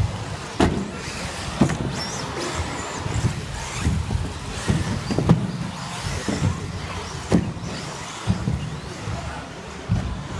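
Electric 1/10-scale two-wheel-drive RC buggies racing: faint high motor whines rising and falling over a steady rumble, with sharp knocks about once a second as the cars land jumps and hit the track.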